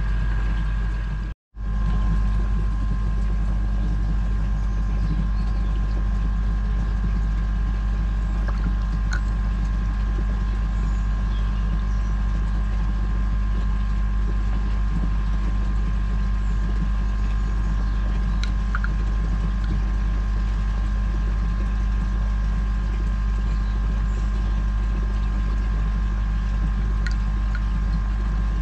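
Steady low machine hum with two thin high whining tones over it, cutting out for a moment just over a second in.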